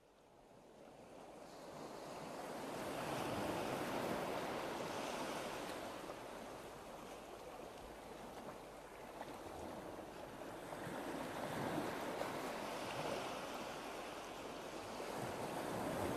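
Waves washing in slow swells, a steady rushing that fades in from silence over the first few seconds, then rises and eases.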